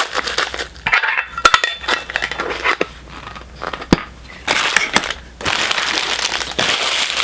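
Plastic packaging being crinkled and crushed by hand: irregular crackling with sharp clicks, easing briefly in the middle, then a steady dense crinkling for the last couple of seconds.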